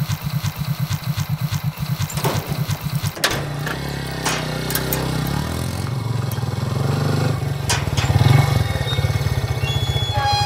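A Hero scooter's small single-cylinder engine idling with a fast, even pulse, then running more steadily and growing louder about eight seconds in as it moves off. A few sharp metallic clanks from the steel gate being opened come in the first few seconds.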